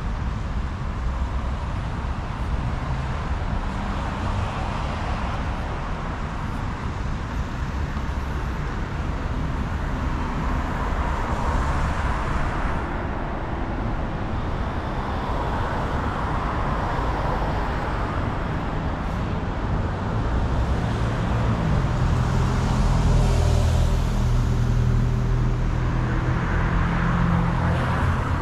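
Street traffic noise with cars passing. A heavier engine hum comes in close and louder from about 22 seconds in.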